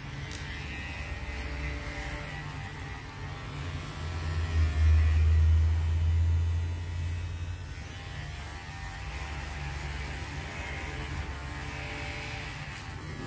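Cordless electric hair clipper running with a steady buzz as it cuts short hair, getting louder for a few seconds in the middle.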